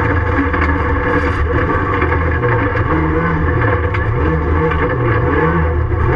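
Ford Fiesta Mk7 rallycross car's engine at racing speed, heard inside the stripped, caged cabin, its revs rising and falling repeatedly over loud road and tyre noise.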